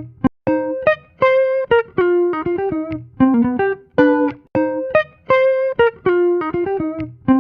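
Instrumental background music: a plucked-string melody of short, sharply struck notes that ring and fade, playing a short phrase over and over.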